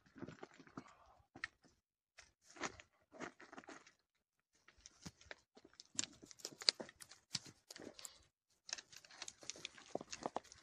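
Footsteps on loose rock and gravel during a steep descent: uneven crunches and scrapes, faint, with a brief pause about four seconds in.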